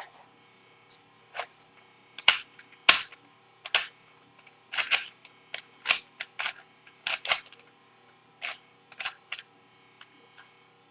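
V-Cube 2 plastic 2x2x2 puzzle cube being turned by hand, its layers snapping into place with sharp clacks at an irregular pace, a dozen or more of them.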